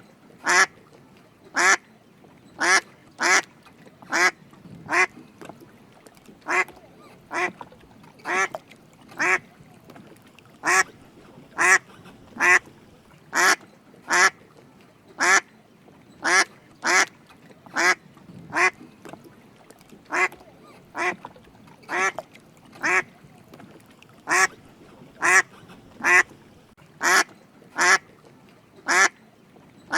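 Drake mallard ducks quacking: short raspy quacks repeated about once a second, often in pairs.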